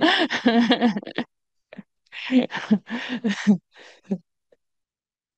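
A woman laughing into a close microphone in two runs of short bursts, the second starting about two seconds in and dying away about four seconds in.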